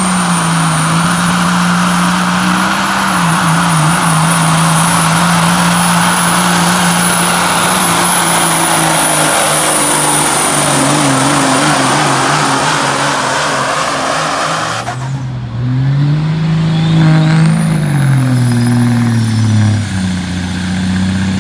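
Semi-truck diesel engine run flat out while pulling a sled, with a high, steady turbo whistle over the engine note; the engine pitch sags as the pull goes on. About 15 seconds in the sound cuts to another pulling semi being revved, its engine note climbing and falling and its turbo whistle spooling back up.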